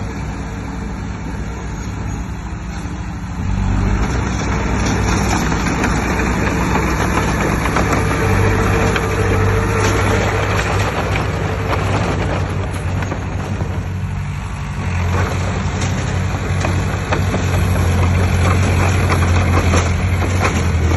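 Heavy diesel engine of earthmoving machinery running steadily, getting louder under load about three and a half seconds in and again near the fifteen-second mark.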